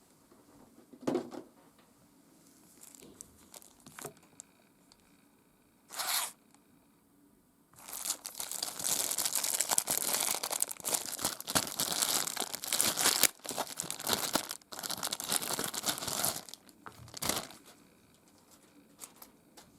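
Taped plastic packaging being torn and crinkled open by hand. A few scattered rustles and taps come first, then about eight seconds of dense tearing and crinkling that starts about eight seconds in and thins to occasional crinkles near the end.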